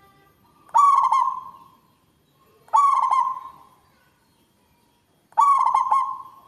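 Caged local-strain zebra dove (perkutut) singing its loud cooing song three times, about two to three seconds apart. Each phrase opens with a quick run of short staccato notes and ends in a long, drawn-out coo that fades away.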